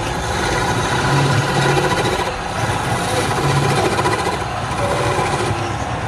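Wood lathe running steadily, its motor humming under a dense mechanical noise.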